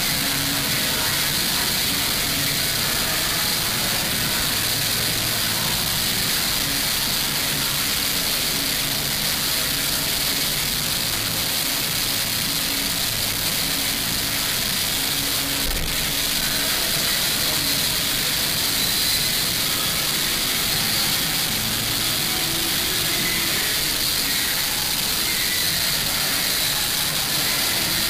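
Steady, even hiss, strongest in the upper range, with a faint low hum underneath and a single sharp click about sixteen seconds in.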